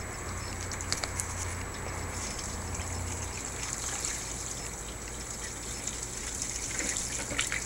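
Water gushing and splashing out of a tipped plastic gallon jug onto wooden deck boards, running steadily.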